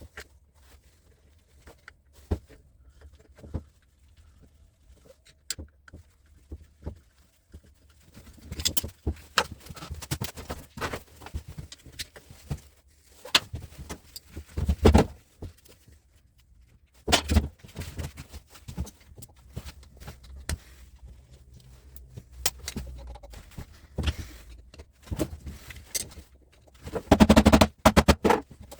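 Scattered metallic clinks, clicks and knocks of hand tools and metal parts being handled as a large electrical switchgear unit is unscrewed and taken apart. The busiest clatter comes near the end.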